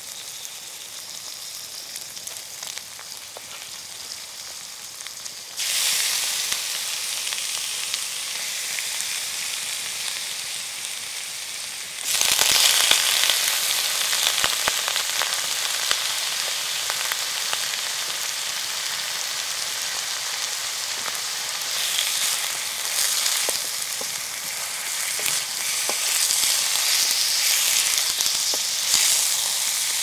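Vegetables and raw mutton pieces sizzling in hot oil in an iron kadai. The sizzle gets louder about five seconds in and jumps sharply about twelve seconds in, as the meat goes into the oil, then goes on as a dense, crackling sizzle.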